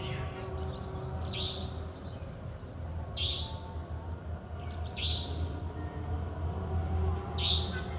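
A bird giving short, sharp chirping calls, four of them about two seconds apart, each sweeping down in pitch. A steady low hum runs underneath.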